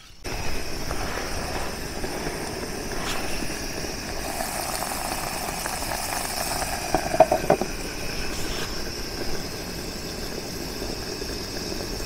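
Steady wind rumbling and hissing on the microphone, with a steady high drone over it. A short clatter of small knocks comes about seven seconds in.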